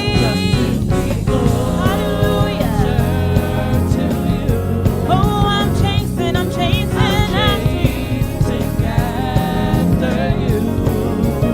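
Gospel worship music: singing over a full band with a steady bass.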